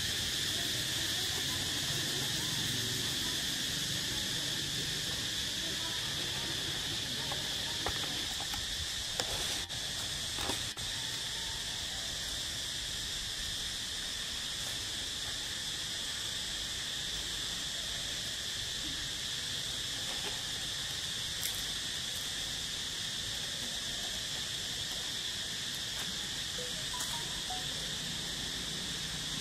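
Steady, high-pitched insect chorus, an unbroken drone, with a few brief clicks about eight to eleven seconds in.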